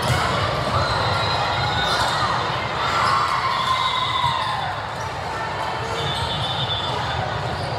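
Indoor volleyball rally: the ball being struck and hitting the court in sharp, scattered knocks that ring in a large hall, with voices calling out.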